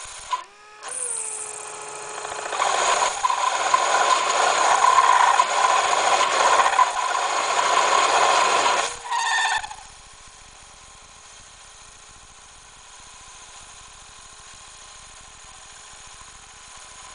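Cobalt parting tool cutting aluminum on a Taig mini lathe. A loud, noisy cut with a steady ringing tone runs from a couple of seconds in until about two-thirds of the way through, then drops to the quiet sound of the spinning lathe. This is the sound of a clean parting cut with the feed and tool geometry right, peeling off a continuous chip.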